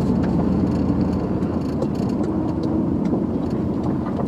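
Pickup truck engine running with a steady low drone, with a few faint clicks and knocks over it.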